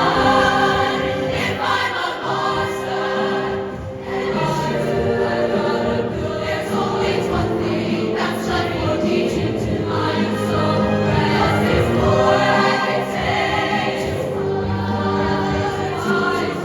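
Show choir singing held chords with live band accompaniment.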